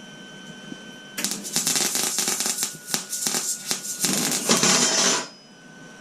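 Electric welding arc crackling and spitting as a tack weld is laid on the steel tube and plate of the stand. It starts about a second in and stops abruptly after about four seconds.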